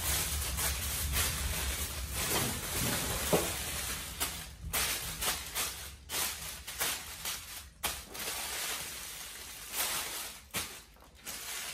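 Kitchen handling noises: an irregular run of short clicks, taps and rustles as food and utensils are handled on the counter, over a low hum that fades after the first few seconds.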